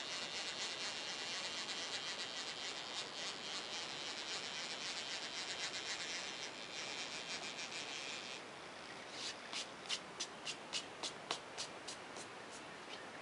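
Metal shaper taking a very fine finishing cut across a hard, high-silicon alloy cylinder casting: a steady, dry scraping rasp as the tool shaves the metal off as dust. About eight seconds in the cutting stops, followed by a run of light clicks, about three a second.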